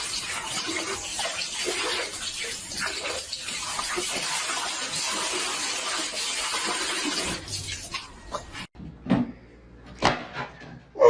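Water running steadily, then cutting off abruptly near the end, followed by a few short knocks.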